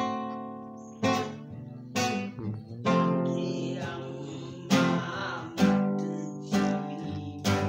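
Acoustic guitar strummed chord by chord, a new chord struck about once a second and left to ring and fade before the next.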